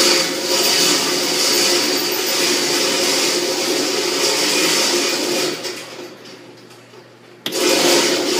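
Electric target-carrier motor of a shooting-range lane running as the target travels along its track. It runs for about five and a half seconds, stops, and starts again about a second before the end.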